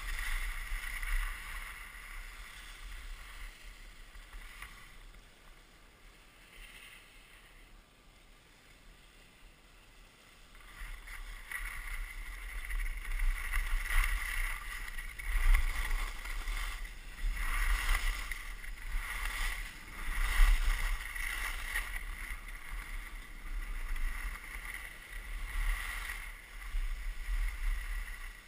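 Skis sliding and carving on groomed snow: a hissing scrape that rises and falls every couple of seconds with the turns, quieter for a few seconds and louder and more uneven from about ten seconds in. Wind rumbles on the body-worn camera's microphone underneath.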